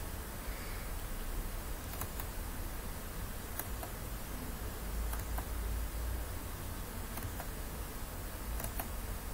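A few scattered mouse clicks, some in quick pairs, over a steady low hum and hiss of microphone and room noise.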